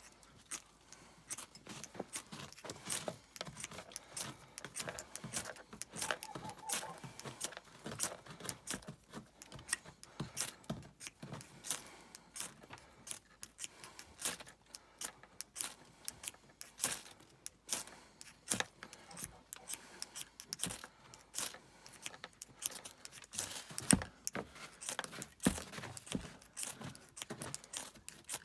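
Steel striker scraped again and again down a fire starter rod to throw sparks onto pocket-lint tinder: many short, sharp scrapes in an uneven rhythm, about one or two a second.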